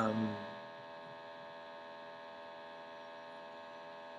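Steady electrical mains hum, a buzz with many even overtones, underlying the recording. A brief vocal sound at the very start.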